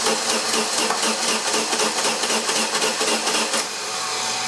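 Pontiac Sunfire's 2.2-litre OHV four-cylinder engine cranking on the starter without starting, with a rhythmic "dut dut dut" beat. The cranking stops about three and a half seconds in and a hum fades out. It is a crank-no-start with low compression, and the mechanic takes the sound for a mortal wound. It lacks the fast free spin he expects from a broken timing chain.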